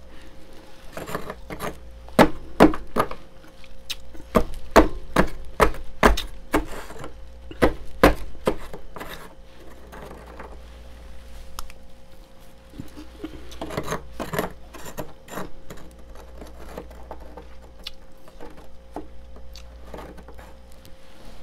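Crunching of fluffy freezer frost being scooped with a spoon and eaten, in quick runs of sharp, crisp crunches: a long run starting about a second in and a shorter one around fourteen seconds. A steady low hum runs underneath.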